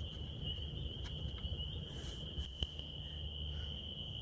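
Insects calling in a steady high-pitched trill, with a low rumble underneath and a single light click about two and a half seconds in.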